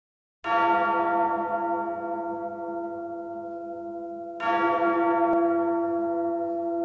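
A large bell struck twice, about four seconds apart, each stroke ringing on and slowly fading: the recorded bell toll that opens a heavy metal track.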